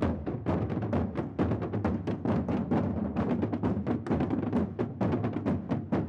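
Street drum band playing a fast, driving rhythm, snare and deeper drums struck together with sticks and mallets, several beats a second without a break.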